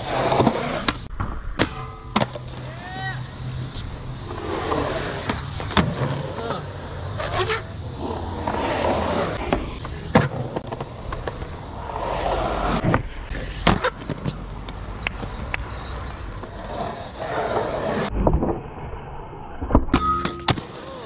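Skateboard wheels rolling on concrete, with sharp clacks of the board popping and landing again and again as tricks are done around a metal rail. The sound breaks off abruptly a few times as one clip cuts to the next.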